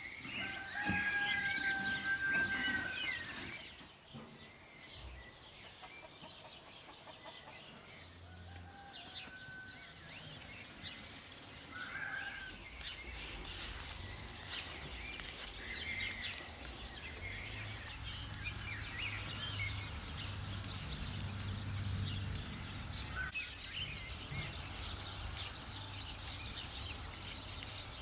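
Small birds chirping in short calls. From about halfway, a run of short, sharp clicks as turkey eggs are handled over a wicker basket.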